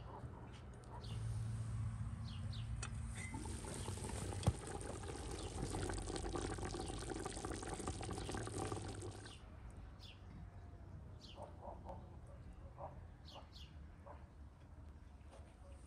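Water pouring steadily for about eight seconds, then stopping, with a sharp click about four seconds in. Small birds chirp throughout.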